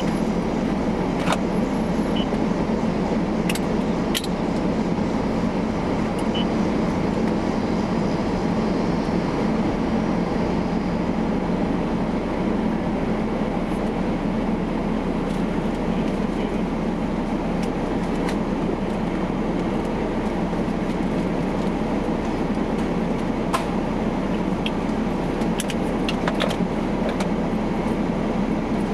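Steady running hum of a car heard from inside its cabin, with a few light clicks.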